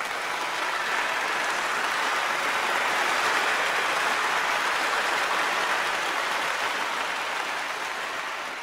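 Crowd applause, swelling over the first three seconds, holding, then slowly fading.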